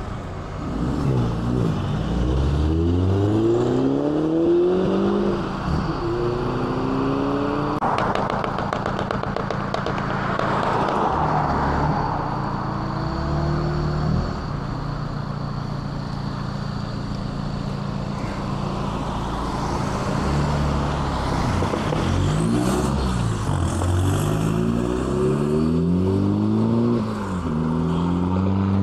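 Cars pulling out of a junction and accelerating away, their engine notes rising in pitch as they pull through the gears, with steady idling from cars waiting at the exit in the middle stretch. About eight to twelve seconds in, a car's tyre rush passes by.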